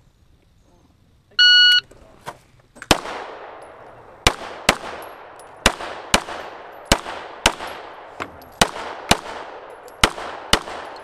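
An IDPA shot timer beeps once, about one and a half seconds in, and then an STI Trojan pistol fires from about three seconds in: roughly a dozen shots, mostly in quick pairs about half a second apart, each with an echo.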